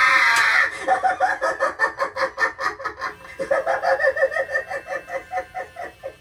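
Spirit Halloween Dagger Mike clown animatronic playing its recorded laugh through its speaker. A loud burst at the start gives way to a rapid, pulsing giggle of about five pulses a second, broken by a short pause about halfway through.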